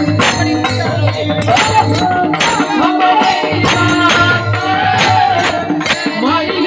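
Devotional kirtan music: a wavering melody, sung or played, over a steady beat of jingling percussion.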